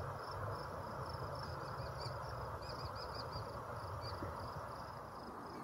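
Short high chirps repeating about three times a second, over a steady low rush of outdoor background noise.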